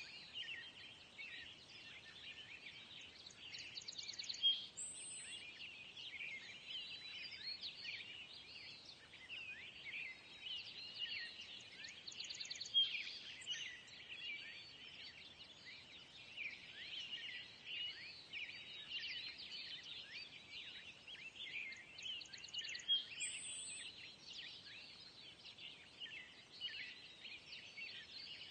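A dense chorus of small birds chirping and twittering, with three louder sharp calls standing out.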